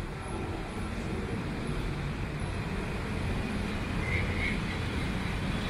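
Steady rumble of distant road traffic.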